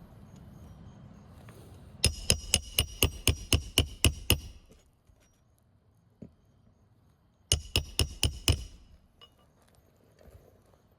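Hammer driving a roofing nail through an asphalt shingle: a quick run of about a dozen ringing strikes, about five a second, then a pause and about six more near the end.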